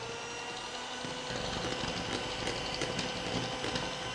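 Electric hand mixer running steadily with a level motor whine, its twin beaters spinning through cake batter of creamed butter, sugar, eggs and flour.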